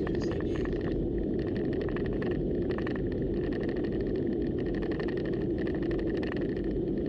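Steady road and tyre noise from a car driving at highway speed, with a faint steady high whine and light irregular ticks over it.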